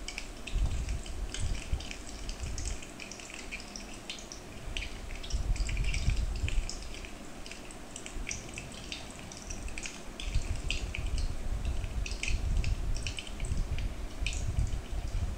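Medu vadai deep-frying in hot oil in a kadai, the oil sizzling with rapid, irregular little crackles and pops as the fritters are turned with a slotted spoon. A low rumble comes and goes underneath.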